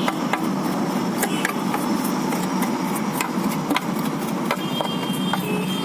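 Scattered light clicks and taps of plastic printer parts being handled and cleaned, over a steady background rumble.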